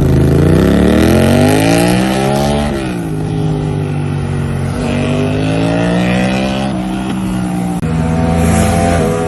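Yamaha R7's 689 cc parallel-twin engine running loud through a prototype stainless-steel Titan GP2 exhaust with a Y-pipe and two end cans, under hard acceleration. Its pitch climbs, drops sharply a little under three seconds in, rises and falls more gently, and climbs again after a short break near the end.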